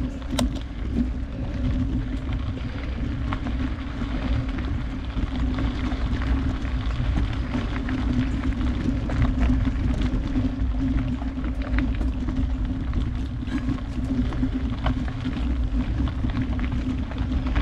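Mountain bike climbing a dirt trail: a steady low rumble of tyres rolling over the ground, with scattered small clicks and ticks throughout.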